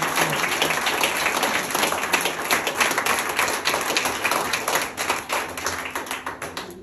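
Audience clapping and applauding, dense and irregular, tapering off and stopping near the end.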